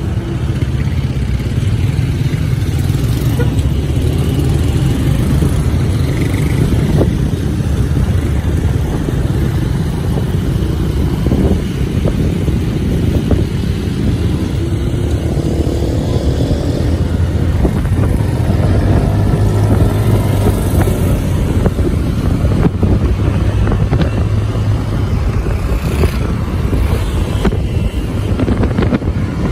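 Motorcycle engine running while riding in traffic, its note rising and falling with speed, over steady road noise.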